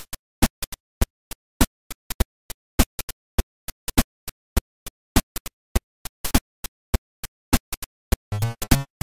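Sharp, unevenly spaced clicks, about four a second, with silence between them, laid over an intro as a sound effect. Near the end, music with a low beat comes in.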